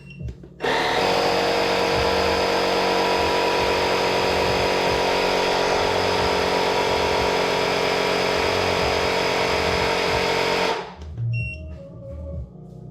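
Small electric air compressor running steadily for about ten seconds, pumping up a scooter's rear tyre from 21 PSI. It starts abruptly and cuts off suddenly.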